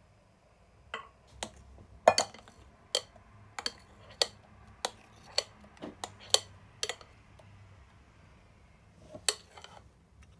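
Sharp clinks on a glass mixing bowl, about two a second, while thick cream-cheese mixture is poured out of it; one more clink near the end.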